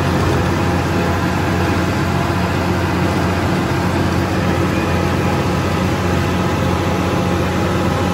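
Farm tractor's diesel engine running steadily under load while it pulls a land-leveling scraper through the soil, heard from on the machine.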